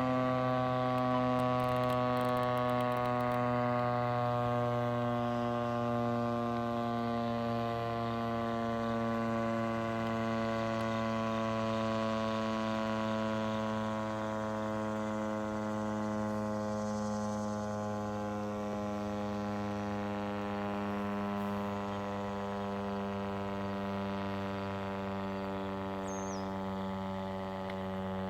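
Federal Signal STH-10 outdoor warning siren coasting down after its test: a steady drone rich in overtones, its pitch sinking very slowly as the rotor winds down.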